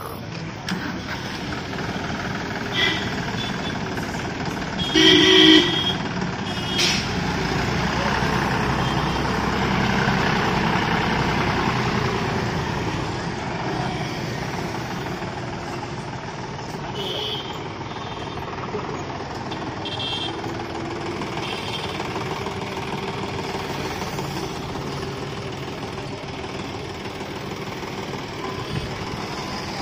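John Deere 5050D tractor's three-cylinder diesel engine running as the tractor drives and manoeuvres, growing louder toward about ten seconds in and then easing off. A vehicle horn toots briefly about five seconds in.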